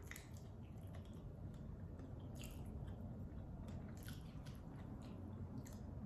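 A person chewing food, faint wet mouth sounds with a few short smacks.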